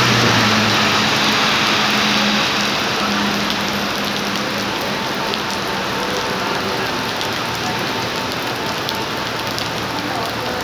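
Heavy rain falling on a paved sidewalk and street: a steady hiss with occasional sharper drop hits. A low hum fades out about two seconds in.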